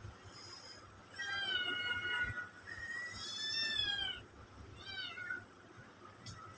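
Cat meowing: a few high-pitched, drawn-out meows, the longest about a second, then a short falling meow near the end.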